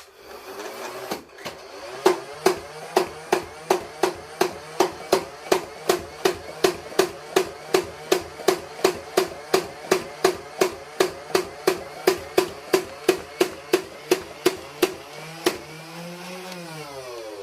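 Motorized Nerf Rival blaster: its flywheel motor spins up with a rising whine, then fires foam balls in a steady string of sharp shots, about two and a half a second, and spins down with a falling whine near the end.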